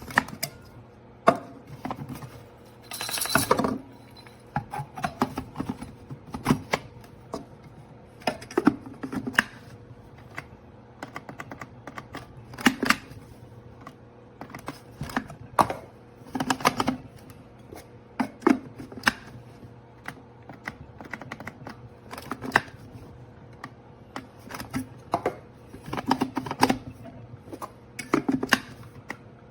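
Irregular sharp clicks and light knocks of small objects being handled, with a short rustling burst about three seconds in, over a faint steady hum.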